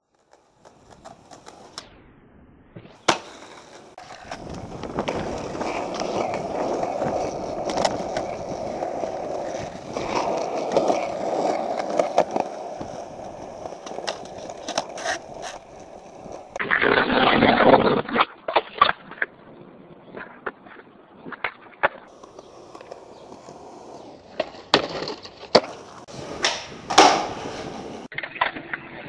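Skateboard wheels rolling on concrete, broken by many sharp clacks of the board popping and landing. A louder, rougher stretch lasts about a second and a half, just past the middle.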